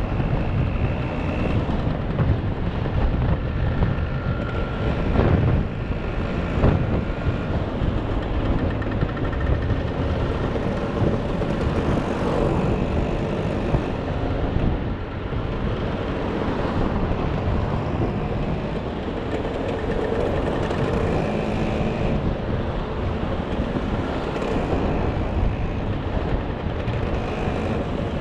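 Motor scooter engine running steadily, a continuous low drone with a rushing noise over it.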